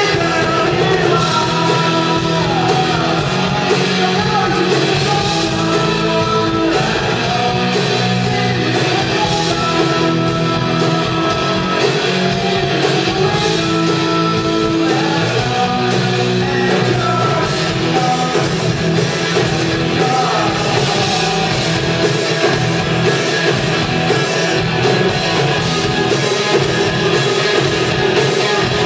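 A rock band playing a song live with a singer, over guitar and drums.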